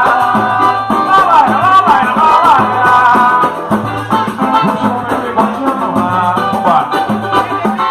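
Pagode samba band playing live: a steady percussion rhythm over a bass line, with a melody moving above.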